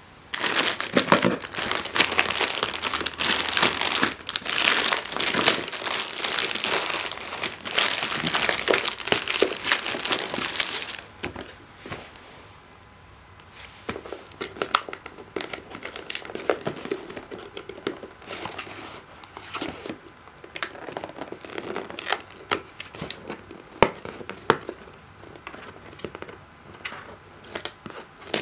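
Plastic courier mailer bag crinkling and tearing as it is opened, for about the first eleven seconds. After a short lull, quieter scratches and sharp clicks of hands handling a cardboard box and picking at its tape seal.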